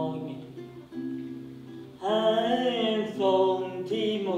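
Acoustic guitar played with singing, the singing getting louder about two seconds in.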